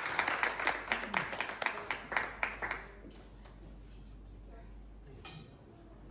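Small audience applauding, the clapping dying away about three seconds in and leaving a quiet room with a steady low hum.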